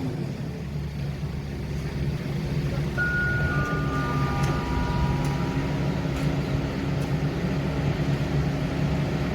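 Heavy diesel machinery engine running steadily. About three seconds in, a few high ringing tones come in one after another.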